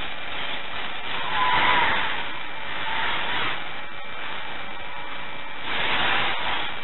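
Small FPV racing quadcopters buzzing as they fly the course, their propeller noise swelling three times as the drones pass close by and a motor pitch rising with the first pass.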